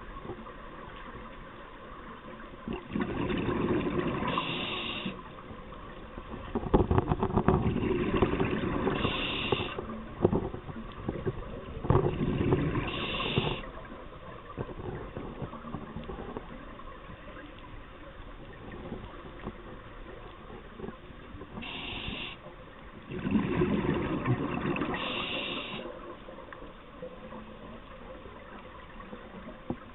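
Scuba diver breathing through a regulator underwater: loud bubbling exhalations lasting a few seconds each, with short hissing inhalations between them.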